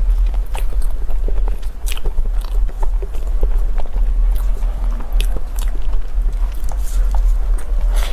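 Crunchy chewing and biting of food, a quick irregular run of crisp clicks, over a steady low hum.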